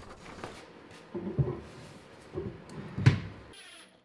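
A few light knocks and handling noises as a Douglas fir wood countertop is set and pressed onto steel wall brackets, with a sharper knock about three seconds in.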